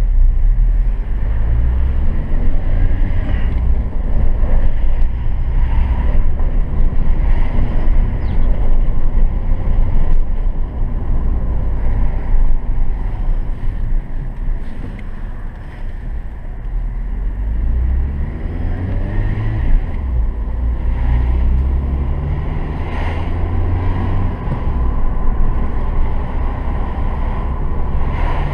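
A 2004 Citroën C2 being driven, with a steady low rumble of engine and tyres on the road and some wind noise. The engine pitch rises twice as the car pulls away and accelerates.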